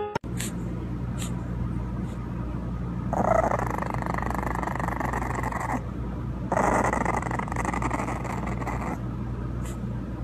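English bulldog puppy growling twice, each growl about two and a half seconds long, over a steady low hum.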